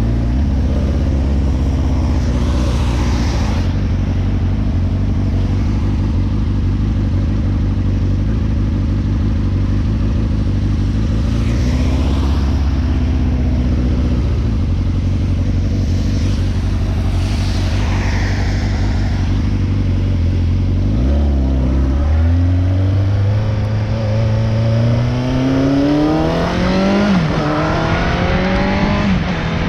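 Motorcycle engine running at a steady low pitch, with three brief rushing swells over it. About 21 seconds in it accelerates, its pitch climbing steadily, dipping once at a gear change and climbing again.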